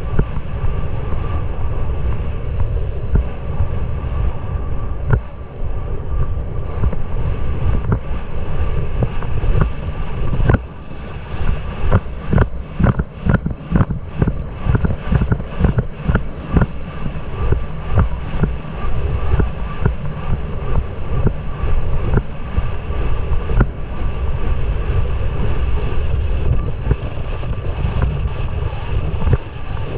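Heavy wind buffeting the microphone of an action camera worn by the rider of a galloping racehorse, with the rhythmic thuds of the horse's stride on the dirt track coming through, plainest about a third of the way in.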